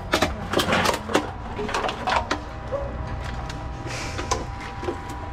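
Container-deposit reverse vending machine running with a steady hum, with a string of clinks and knocks from cans and bottles being handled or fed into it over the first two seconds or so.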